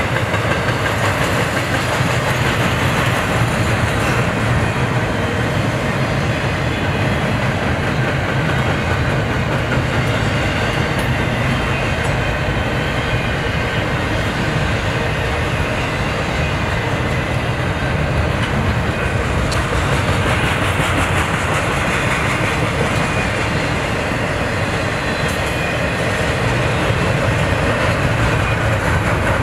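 Double-stack intermodal container train passing at speed: the steady rumble of loaded well cars, their wheels running and clicking on the rails.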